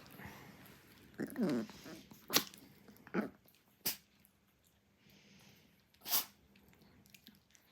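A Chihuahua puppy and a small adult dog playing together. There is a short wavering vocal sound about a second in and another near three seconds, and three short, sharp noises in between and after.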